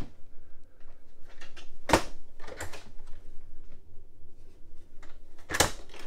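Latch clicks of a Norcold RV refrigerator's doors being shut and handled: a sharp click about two seconds in, a fainter one just after, and another sharp click near the end.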